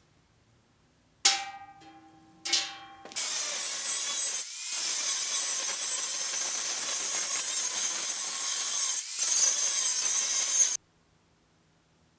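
A power tool cutting through thin rolled sheet steel, a steady hissing cut with two short breaks, preceded by two ringing metallic strikes as the steel sheet is knocked.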